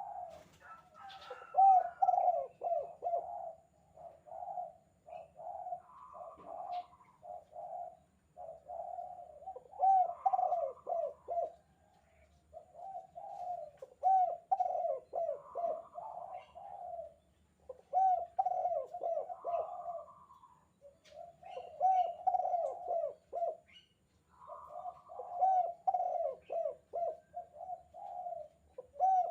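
Spotted dove (tekukur) giving its 'kuk 2' cooing call, repeated phrase after phrase every few seconds. Each phrase is a quick run of low coos, several opening with a softer, higher note.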